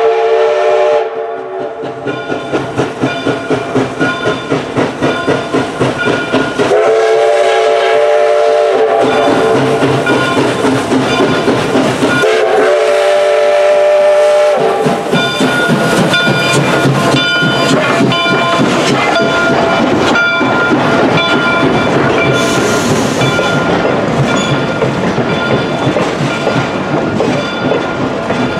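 Canadian Pacific 3716, a 2-8-0 steam locomotive, blowing its steam whistle three times while its exhaust chuffs about three beats a second. The locomotive then passes close by, and its passenger cars roll past with the clickety-clack of wheels over rail joints.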